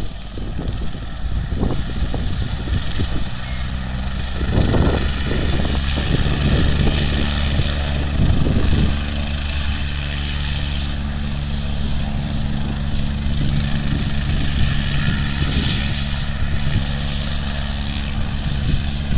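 Air ambulance helicopter running on the ground, its rotors giving a steady low throb with a hiss above it. A few short, sharper sounds come in near the start and about five seconds in.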